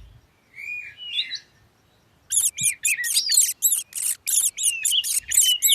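Mouse squeaking: a couple of short high squeaks, then a fast run of high-pitched chirping squeaks, about five a second.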